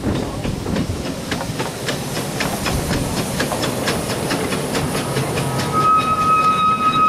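W.G. Bagnall 2-4-0 tank steam locomotive chuffing past at low speed with a quick, regular beat, hauling a rake of open passenger coaches. About five seconds in, a steady high-pitched tone joins it and holds to the end.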